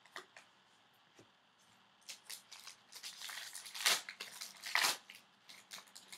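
A trading card pack's wrapper being torn open and crumpled by hand: a crackling, crinkling rustle that starts about two seconds in and is loudest around four and five seconds in, with light ticks of handling before and after.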